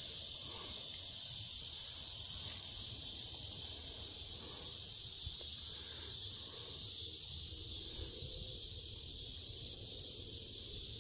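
Steady, high-pitched chorus of insects, an unbroken hiss with no pauses.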